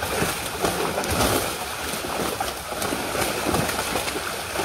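Water sloshing and splashing in many small, irregular splashes.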